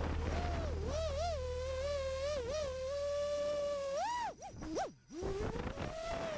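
FPV quadcopter's brushless motors whining, the pitch rising and falling with the throttle. About four and a half seconds in the throttle is chopped: the whine swoops up, drops away almost to nothing, then climbs back.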